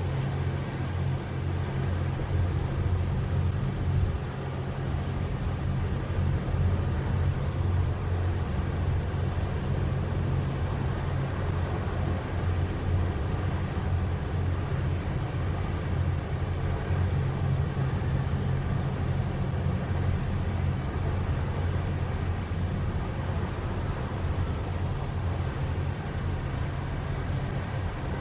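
A steady, low engine drone with a hum, unchanging throughout.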